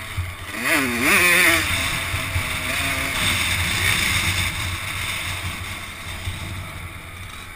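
Kawasaki KX85 two-stroke engine being ridden hard, its note swooping up and down sharply about a second in, then running more steadily and easing off toward the end. A rushing wind noise sits over it, buffeting the helmet-mounted microphone.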